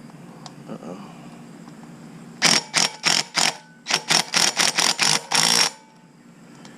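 Ratchet wrench working a bolt: a quick run of about a dozen short ratcheting strokes that quicken and stop abruptly, tightening a bolt on a mini bike.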